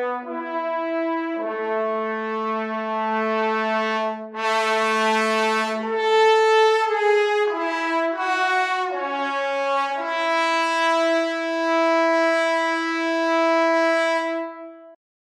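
Sampled trombone section from the Cinematic Studio Brass library playing long sustained chords that change several times. A chord about four seconds in swells louder and brighter, and the last chord stops just before the end.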